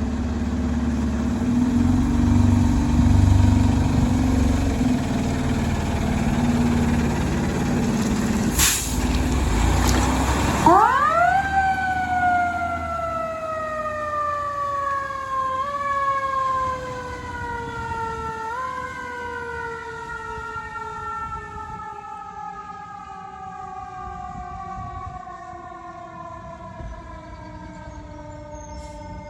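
Fire engine's diesel engine running, with a short hiss of air about nine seconds in. About ten seconds in, the truck's siren winds up sharply, then slowly falls in pitch and fades, picking up briefly twice along the way.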